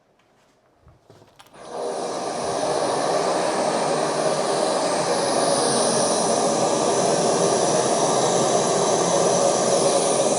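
A few faint clicks, then about two seconds in a loud, steady machine-like noise starts abruptly and keeps going, with a hum under it. It is the test noise of a soundproofing demonstration, which the gypsum-board room had been keeping out.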